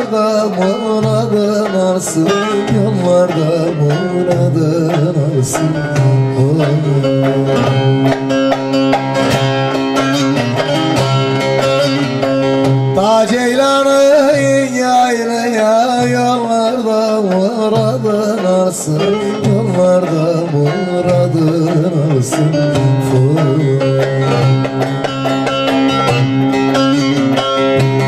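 Amplified bağlama (Turkish long-necked saz) playing a Turkish folk tune with plucked runs over a light drum beat. A man sings long, wavering notes over it, mostly around the middle.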